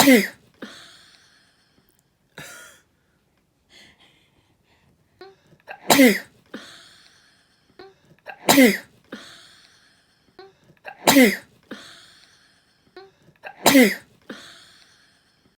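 A person sneezing: five loud sneezes, each a sudden blast with a falling voiced cry. The first comes at the start, and four more follow about every two and a half seconds from about six seconds in, with short quieter sounds before several of them.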